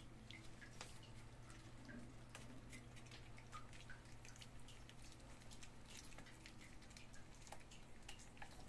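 Faint, scattered small clicks of several puppies eating rice from a plastic tray, over a low steady hum.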